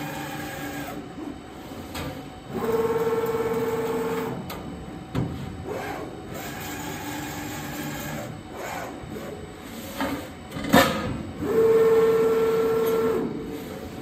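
CNC sheet-metal panel bender working through a folding cycle on a stainless steel sink box. Its drive motors whine at a steady pitch in stretches of a second or two, loudest a few seconds in and again near the end. A sharp clack comes just before the second loud whine.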